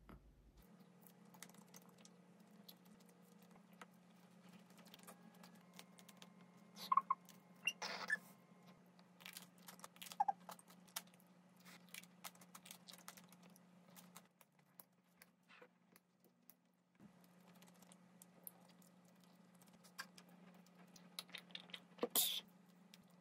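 Scattered light clicks, taps and rustles of packaging and tableware handled on a table, over a faint steady hum, with a few louder clatters about a third of the way in and again near the end.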